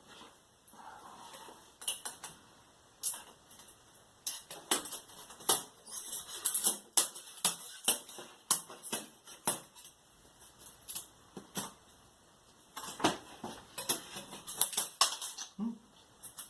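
Putty knife prying and scraping LED backlight strips off the metal back panel of an LED TV, making irregular sharp clicks and taps.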